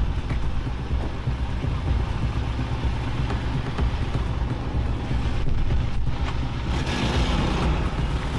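SUV engine idling with wind buffeting the microphone. Near the end the SUV pulls away and its tyres hiss on the wet road.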